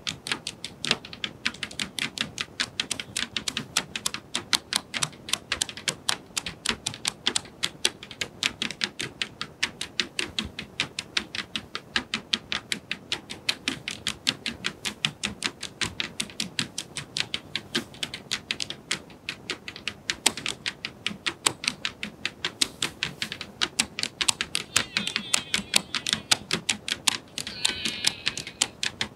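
Rhythmic percussion of sharp clicks in a fast, even run, several a second and steady throughout. A brief higher pitched sound joins near the end.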